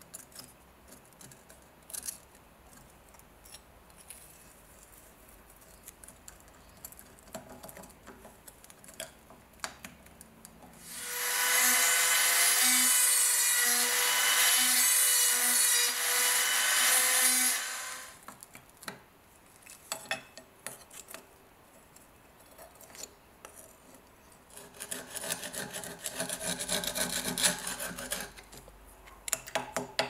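Small high-speed rotary tool with a ball burr grinding out a rusted rivet on a pocket knife's handle, a steady whine lasting about six seconds near the middle. Around it, scattered clicks and scrapes of metal knife parts being handled, and a rougher stretch of scraping near the end.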